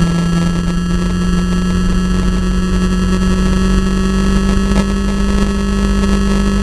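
Vehicle engine held at high revs under load, its pitch climbing slowly and steadily, over a constant rush of wind and road noise.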